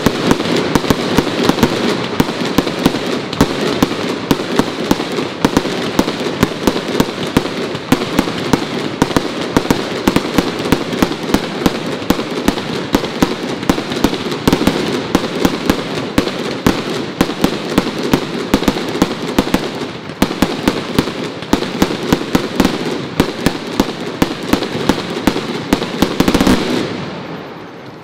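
Fireworks going off in rapid succession: a dense run of bangs, pops and crackles, many per second, that stops abruptly shortly before the end.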